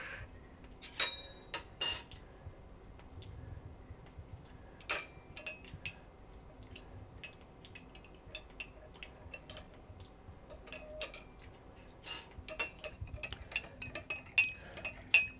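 Irregular clinks and taps of crockery and cutlery being handled: small china plates and metal utensils knocking together, a few sharper clinks ringing briefly.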